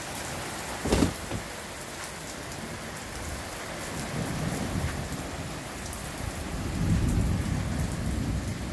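Heavy rain pouring steadily, with a sharp crack about a second in and low thunder rumbling over the second half.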